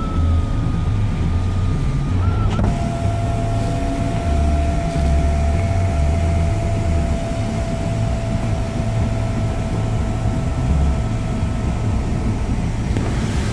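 Electric motors of a 2016 Nissan Murano's panoramic moonroof and power sunshade running: a steady whine, a click about two and a half seconds in, then a lower steady whine that stops near the end. Under it is a low rumble.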